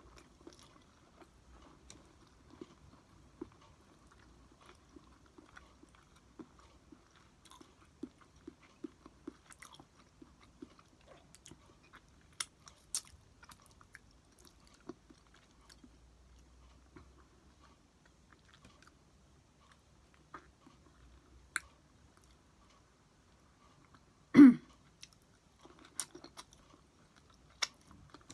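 A person chewing and biting food with small wet clicks and soft crunches. About three quarters of the way through comes one short, loud pitched vocal sound.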